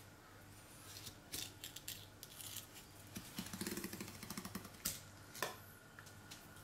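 A knife cutting into a spotted mackerel along its back on a plastic cutting board: faint scraping with scattered clicks, a rapid rasping stretch of about a second beginning about three seconds in, and two sharp clicks near the end.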